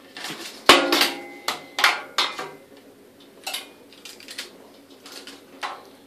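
A series of sharp knocks and clinks from hard objects being handled, some with a short ringing tail. The loudest comes about a second in, and softer taps follow.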